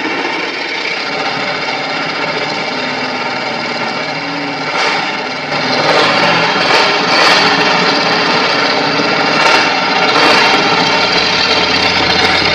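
Large V-type engine with open upturned exhaust stacks running on a test stand, getting louder and rougher about halfway through.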